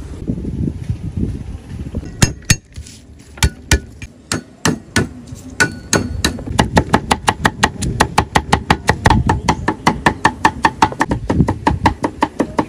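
Cleaver chopping on a round wooden chopping block. It begins with a few scattered strokes, then settles into a fast, even run of chops, several a second. For about the first two seconds, oil sizzling in the deep-frying wok comes before the chopping.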